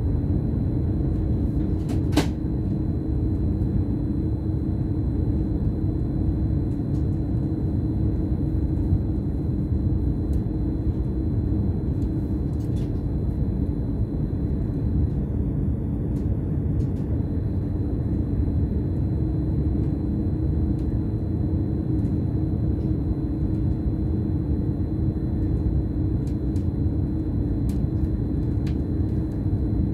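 Steady running rumble of a BLS RABe 515 electric multiple unit at speed, heard from the driver's cab, with a faint steady high whine. A single sharp click about two seconds in.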